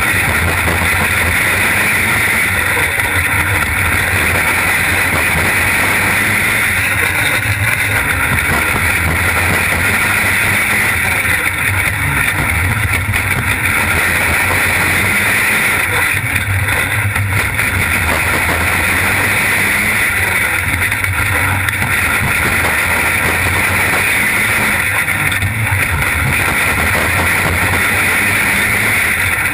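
Winged sprint car's engine running hard at racing speed, picked up by the onboard camera with heavy wind noise. It is loud and continuous, swelling and easing slightly every four to five seconds.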